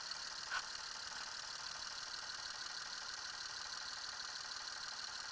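Car engine idling with its hydraulic lifters rattling because the oil has run out, while a clear liquid is poured from a jug into the oil filler in a steady stream. One short click about half a second in.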